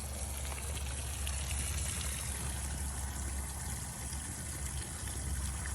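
Water left running into a horse trough, overflowing and running off across the ground in a steady stream like a small creek.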